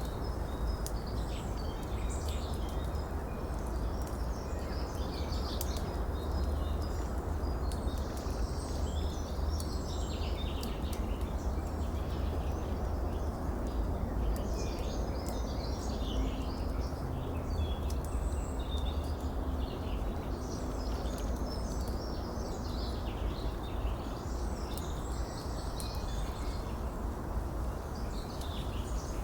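Many small birds chirping and singing over a steady rush of running water.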